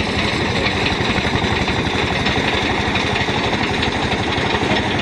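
Engine-driven rice threshing machine running steadily, with a dense rapid engine rattle and a constant mechanical hum.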